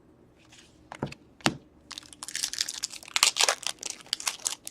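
A foil trading-card pack wrapper being torn open and crinkled: two sharp snaps, then a dense stretch of crackling.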